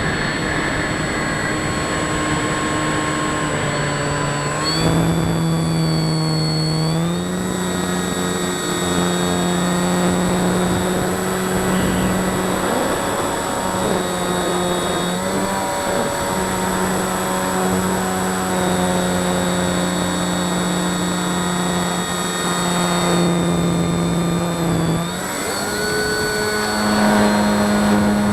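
Electric motor and propeller of a small RC model airplane in flight, a steady whine that steps up and down in pitch several times as the throttle is changed, highest and loudest near the end.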